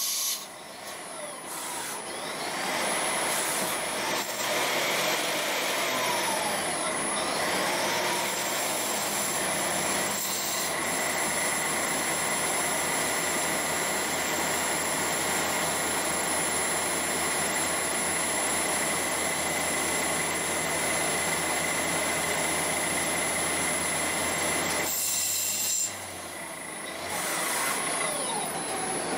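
CNC lathe turning a brass part under flood coolant: a steady hiss of coolant spray over the running spindle and the cutting tool. About ten seconds in, a steady high whine joins it; the whine stops near the end as the sound drops briefly.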